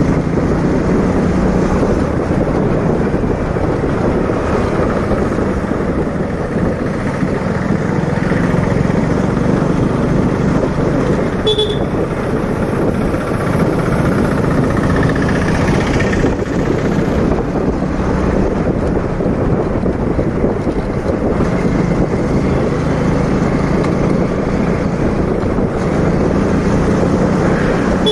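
Motorcycle engine running steadily at road speed, heard from the rider's seat while riding.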